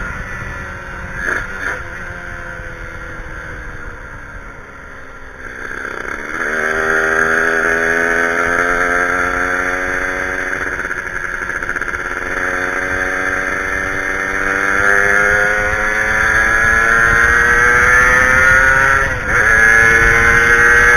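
Two-stroke motorcycle engine under way. Its pitch falls for the first five seconds as it slows, then rises steadily as it accelerates, with a brief drop about nineteen seconds in before it climbs again.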